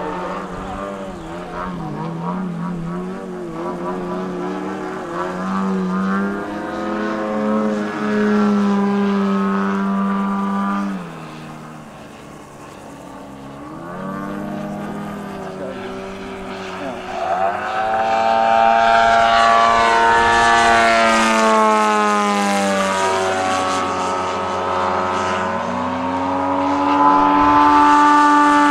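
Engine of a propeller-driven RC aerobatic model plane running in flight, its pitch rising and falling as it changes throttle through manoeuvres. It fades briefly before the middle and grows louder from a little past the middle.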